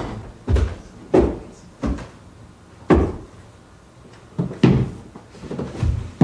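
Someone scrambling about inside a clothes closet, knocking against its wooden walls, door and floor: about eight irregular thumps and bangs.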